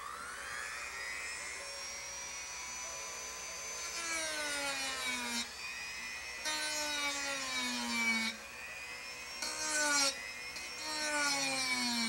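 Dremel rotary tool with a sanding drum whining as it spins up, then sanding a carved wooden bird tail. Its pitch sags four times as the drum is pressed into the wood and the motor slows under load, and rises again between passes.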